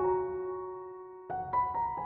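Slow, soft piano music: a chord rings out and fades, then new notes come in about a second and a half in.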